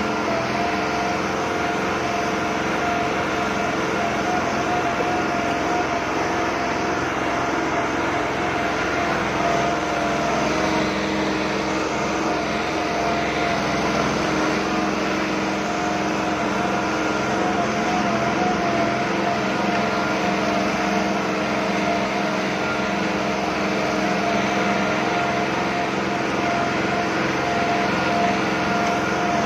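New Holland 5620 tractor's diesel engine running steadily under load while pulling a cultivator through wet soil.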